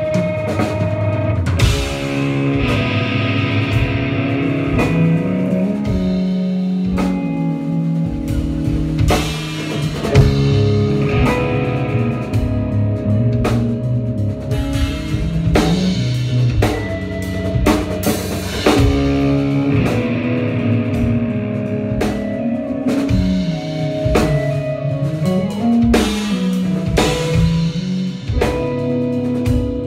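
Live rock band playing, with a drum kit and guitar, drum hits landing steadily over moving guitar lines.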